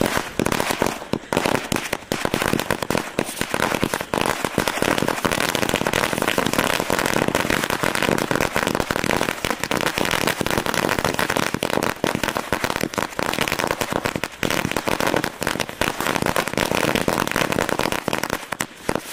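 A thousand-cracker string (hazaar wala ladi) going off: small firecrackers bursting one after another in a rapid, unbroken chain of bangs.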